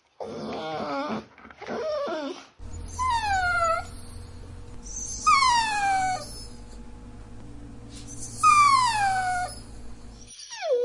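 Dog whining: two short, wavering whimpers, then three long, high whines that each slide down in pitch, over a steady low hum.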